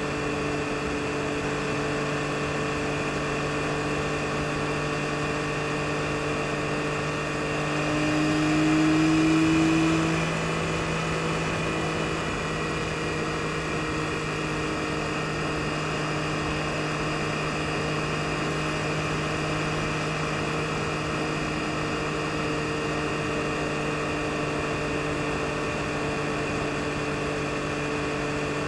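2022 Yamaha MT-09 SP's 890 cc inline-three engine running at a steady cruising speed, with wind and road noise underneath. About eight seconds in it swells louder and slightly higher for a couple of seconds, then settles back to the same steady drone.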